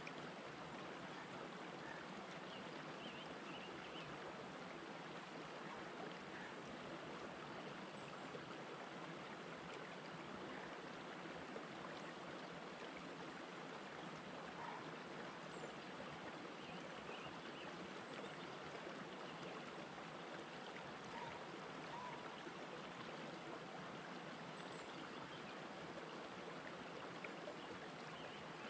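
Shallow rocky stream running steadily over and between boulders: an even, unbroken wash of flowing water.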